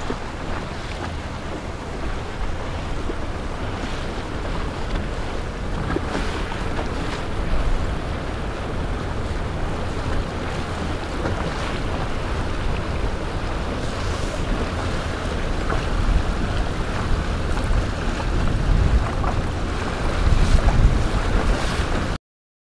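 Wind buffeting the microphone over a steady rush of boat motors and churning water, growing a little louder in the last few seconds before cutting off abruptly.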